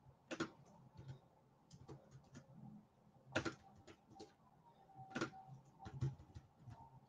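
Typing on a computer keyboard: faint, irregular key clicks with a few louder keystrokes.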